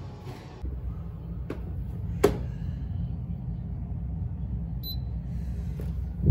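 Steady low rumble with a sharp click a little after two seconds, then a short high electronic beep from a digital platform scale near five seconds in.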